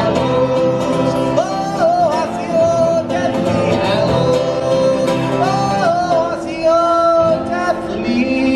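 A man singing and strumming an acoustic guitar in a live solo performance.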